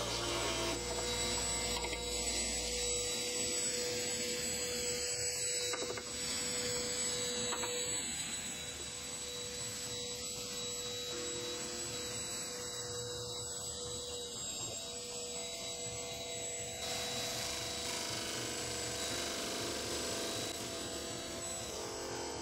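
Homemade disc sander's electric motor running steadily, with a held hum, as pieces of wood are pressed against the spinning sanding disc.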